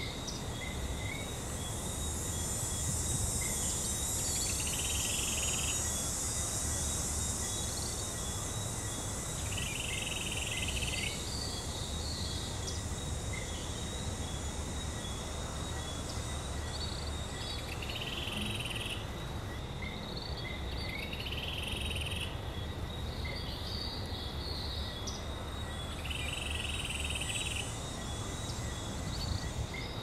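Rainforest ambience: a steady rush of falling water under a chorus of insects, with thin steady high trilling tones and scattered chirps. Short rasping calls repeat every five seconds or so.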